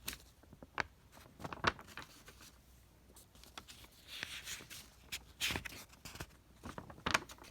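Faint handling noise: scattered light clicks and taps, with a couple of brief rustles near the middle.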